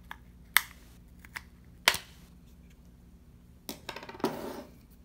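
Plastic shell of a Ford Fusion smart key fob snapping as its halves are pried apart with the metal key blade: sharp clicks about half a second and two seconds in. Near the end comes a quick run of small clicks and a short scraping rustle of plastic as the case comes open.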